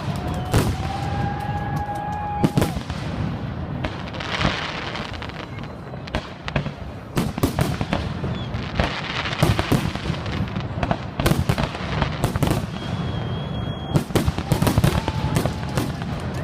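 Fireworks display: a dense run of bangs and crackling pops from bursting shells, with a few held whistle tones among them.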